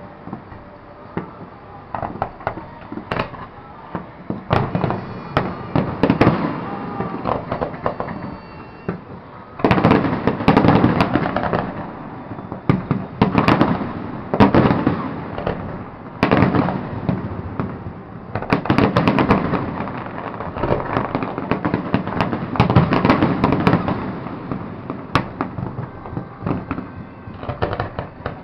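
Fireworks display: a dense, irregular barrage of overlapping bangs and crackling, growing heavier about a third of the way in and coming in loud waves after that.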